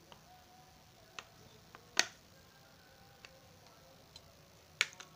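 Scattered sharp clicks and taps of a partly disassembled smartphone's plastic and metal parts being handled and separated. The loudest click comes about two seconds in, with another sharp pair near the end.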